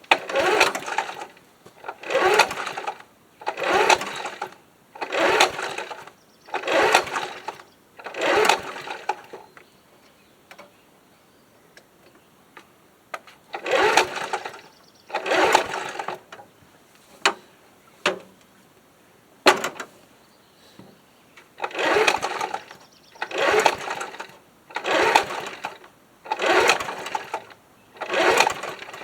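1979 Ace Hardware push mower's engine being cranked by repeated pulls on the recoil starter rope, about a dozen pulls in three sets, each a short burst of the engine turning over without catching. It won't start because there is no spark, which the owner puts down to corroded ignition points.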